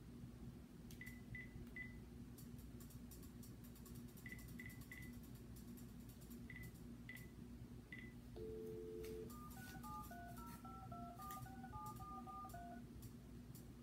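Cordless phone handset being dialled: quiet single-pitch keypad beeps in small clusters as the number is keyed in, then a dial tone for about a second, then a quick run of touch-tone digits as the phone dials out.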